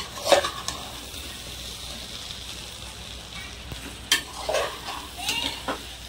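Rice and vegetables sizzling steadily in hot oil in a pressure cooker pot, with a spoon scraping the pot as they are stirred and fried: once just after the start, then several strokes from about four seconds in.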